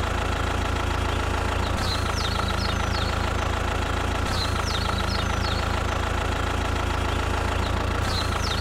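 Tractor-type engine idling with a steady low rumble. Clusters of short, high, falling chirps sound over it, and the same stretch of sound repeats every few seconds like a loop.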